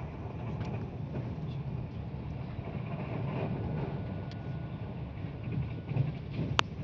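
Hyundai InterCity+ electric train running at speed, heard inside the passenger car as a steady low rumble, with a faint thin whine for a couple of seconds midway and a single sharp click near the end.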